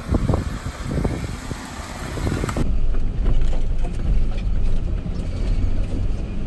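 Jeep Wrangler engine and tyres crawling over a rocky dirt track. About two and a half seconds in the sound changes abruptly to a louder, steady low engine rumble picked up by a camera mounted on the vehicle.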